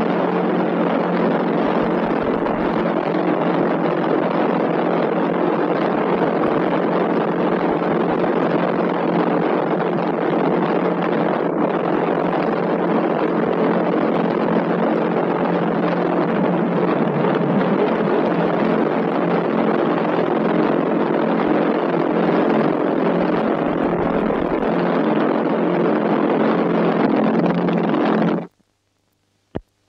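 Loud, steady mechanical drone, a dense hum of several steady tones over noise, that cuts off abruptly near the end and is followed by a single click.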